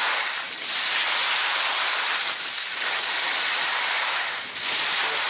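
Steady hiss of skis sliding over packed snow during a downhill run, easing briefly three times.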